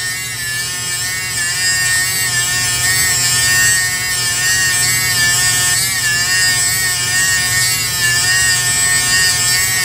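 Small electric motor spinning a diamond sharpening wheel, a steady whine whose pitch wavers slightly as a steel graver is ground against the moving wheel.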